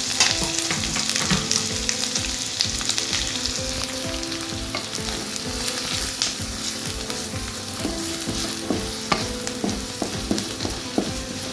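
Chopped onion sizzling as it fries in a spoonful of hot oil in a pan, with a utensil tapping and scraping the pan as it is stirred. The clicks come more often in the second half.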